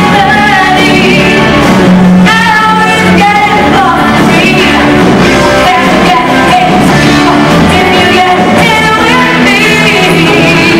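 A woman belting a rock song over a live rock band, the voice rising and falling in held, sung phrases.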